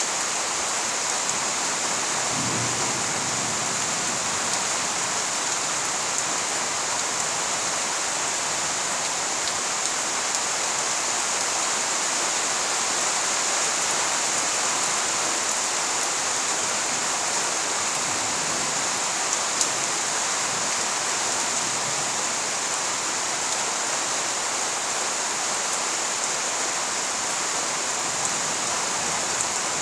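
Steady rain falling, an even hiss that holds throughout, with a few single drops ticking louder now and then.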